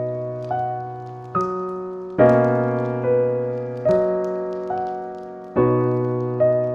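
Slow, gentle solo piano music: soft chords and melody notes struck about every second, each ringing out and fading before the next, over a low bass note.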